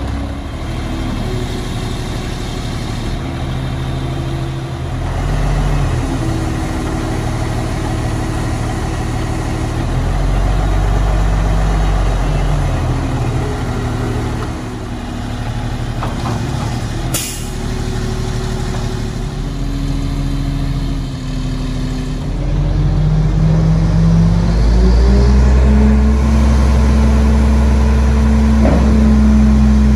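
Mack MR688S garbage truck's 350 hp Mack AI inline-six diesel running, its engine speed stepping up and down and rising higher over the last several seconds. A brief sharp click comes about 17 seconds in.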